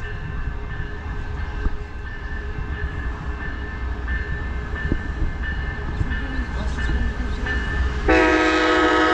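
Amtrak Coast Starlight passenger train rumbling into the station. About eight seconds in, the locomotive sounds its horn: a loud, held blast.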